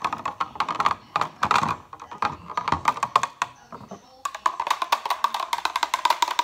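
Rapid, even clinking of a utensil stirring a mixture in a glass measuring cup, with a brief lull about four seconds in.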